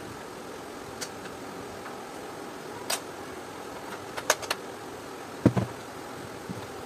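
Plastic body and buttons of a Panasonic NI-U550 steam iron clicking and knocking as it is handled. Single sharp clicks come first, then a quick run of three about four seconds in, and the loudest, duller knock about five and a half seconds in, all over a steady background hum.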